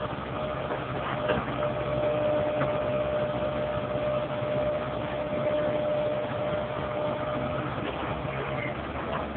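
Komatsu hydraulic excavator's diesel engine running steadily as the machine digs, with a steady high whine through most of it and a few short knocks.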